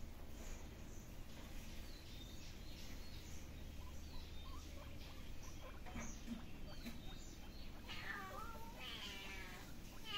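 Kitten meowing: two drawn-out, wavering meows about eight seconds in, with a third starting right at the end.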